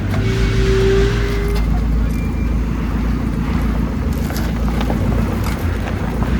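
Off-road 4x4 engine running steadily at low revs while driving, with a brief held tone in the first second and a half.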